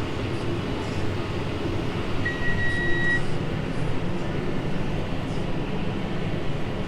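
John Deere 6250R tractor running steadily while the Krone Big Pack 890 square baler works hay behind it. A single electronic beep, held for about a second, sounds about two seconds in.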